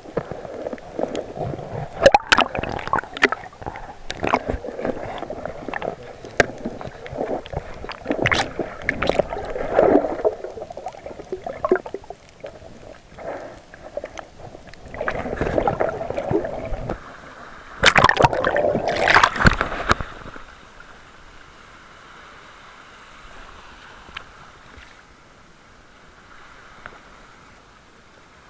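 Water gurgling and sloshing around an underwater camera, with many irregular clicks and knocks and several louder surging bursts. About two-thirds of the way in it drops to a quieter steady hiss.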